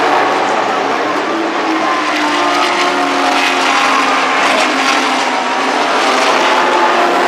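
Several racing cars' engines running at a distance as they pass through a turn, their overlapping notes rising and falling in pitch with throttle and gear changes.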